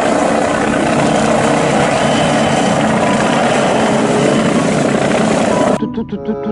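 Helicopter sound effect: a steady rush of rotor and engine noise that cuts off abruptly near the end, where background music comes back in.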